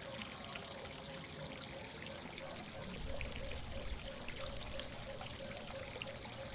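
Steady running water, pouring and trickling, with a faint steady hum underneath. A low rumble comes in about three seconds in.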